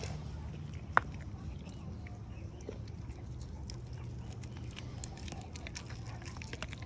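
American Pit Bull Terrier chewing and gnawing a chunk of raw meat held out to it, with quick wet clicks that come thicker in the second half. One sharp knock about a second in.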